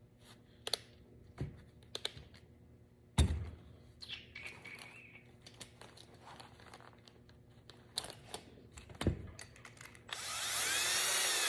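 A few scattered clicks and knocks of handling. About ten seconds in, a 12-volt DeWalt cordless drill starts driving a screw into wood, its motor whine rising and dipping. It is set to drill mode, so the torque clutch is bypassed and does not click out.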